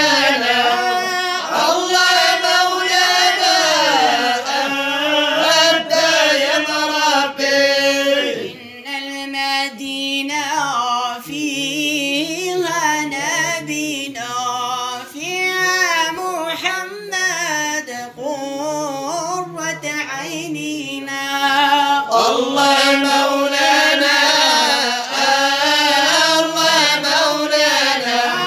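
Arabic madih nabawi (devotional praise song for the Prophet) sung in long, ornamented melismatic phrases with held, wavering notes.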